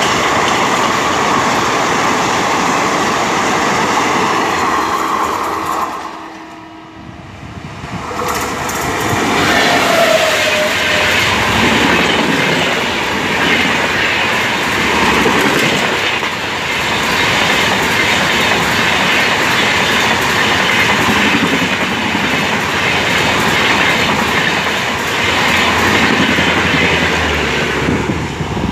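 Indian Railways express passenger coaches passing at high speed: a steady rush of wheels on rail with clickety-clack over the joints. The sound drops away briefly about six seconds in, then a second train of LHB coaches runs past at speed.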